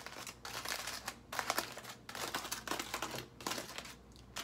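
Aluminium foil crinkling in irregular bursts as a foil-wrapped food packet is opened by hand.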